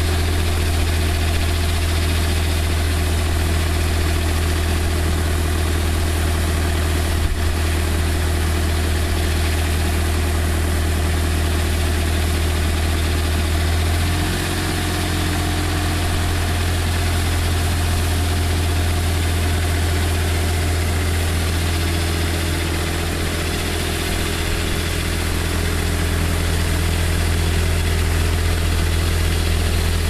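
Water spraying from a rotating irrigation boom, an even hiss, over a loud steady low drone with a few steady hum tones, mixed with wind noise. The drone shifts slightly about halfway through.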